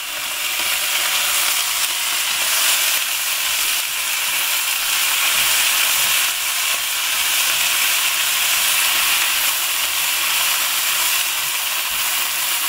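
Bok choy stir-frying in oil and fish sauce in a hot wok: a steady sizzling hiss as the greens are stirred with chopsticks.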